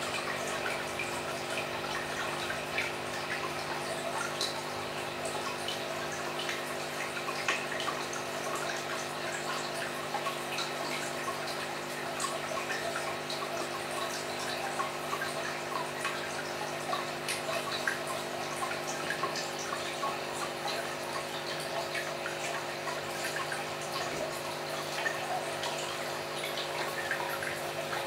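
Steady trickling and bubbling of aquarium water with many small drips, over a constant motor hum, as from an aquarium pump.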